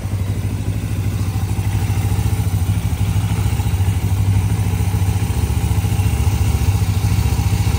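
Suzuki GS500's air-cooled parallel-twin engine idling steadily.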